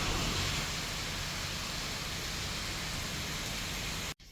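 Heavy monsoon rain pouring down in a steady hiss, cutting off suddenly near the end.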